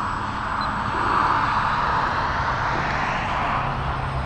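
Micro Draco RC plane's electric motor and propeller whining in flight, swelling about a second in as it passes closer, then easing off slightly.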